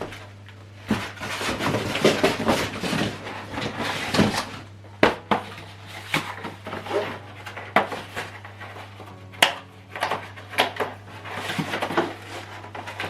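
Packaging being handled while a soundbar is unboxed: irregular rustling with several sharp clicks and knocks, over a faint steady low hum.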